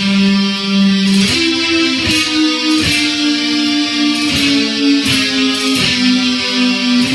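Instrumental music with no singing: strummed guitar chords, changing about every one and a half seconds.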